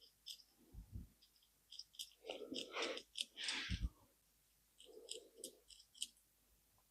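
Faint light clicks and handling noise from the key bars of a 1932 Klein Continental portable typewriter being worked by hand while penetrating oil goes onto the typebar segment. The typebars are sluggish, which the owner puts down to old gunk in the segment. A denser patch of rustling and a low knock come about halfway through.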